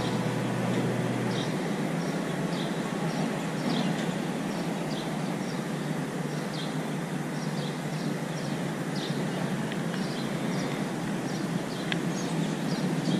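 Steady rushing outdoor noise, with faint short high ticks repeating about once or twice a second.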